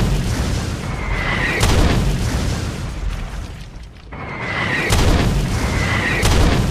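A series of explosion booms: a deep continuous rumble with sharp cracks about a second and a half in, near five seconds and again just after six seconds. The rumble fades about four seconds in before the next blast swells up.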